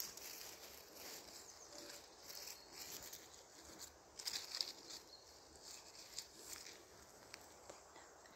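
Faint, irregular rustling and crackling of dry leaves and forest-floor undergrowth as someone moves through it, with a short run of louder crackles about four seconds in.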